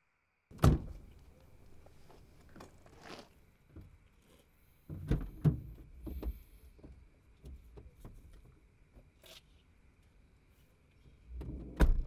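Thuds and knocks inside a car: a heavy thunk about half a second in, a few lighter knocks and bumps through the middle, and another heavy thunk near the end, over a faint steady high tone.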